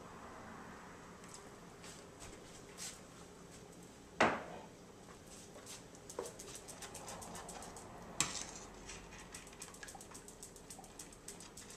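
Metal spoon stirring a sauce in a stainless steel skillet, clinking and scraping against the pan. There are two sharp clanks, about four and about eight seconds in, then a run of quick light taps.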